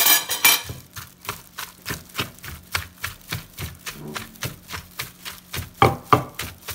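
Rapid, even chopping with a knife on a cutting board, about four strokes a second, with a few heavier knocks near the end.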